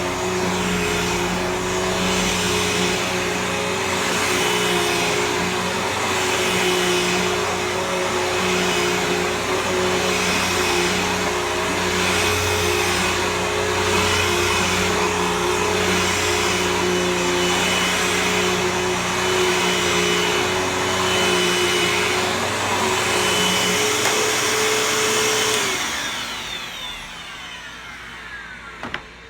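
Bissell CleanView Helix Select vacuum cleaner running steadily with a constant motor whine, then switched off about 26 seconds in, its motor winding down with a falling pitch. The owner says the sound shows the motor needs cleaning.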